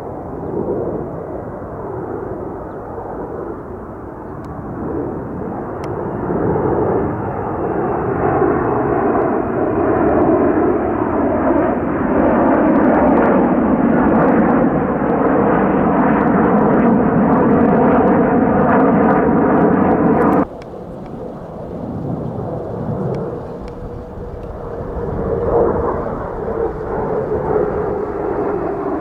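F-35A fighter jet with its single Pratt & Whitney F135 engine, flying a practice demonstration. The engine noise builds to a loud, steady peak, breaks off abruptly about two-thirds of the way through, then carries on quieter with a steady whine that sinks slightly in pitch near the end.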